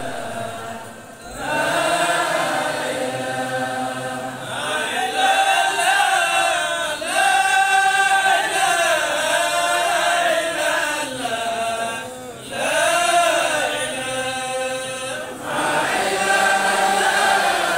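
A group of men chanting an Islamic devotional chant in unison through microphones, in long melodic phrases, with a short breath pause about two-thirds of the way through.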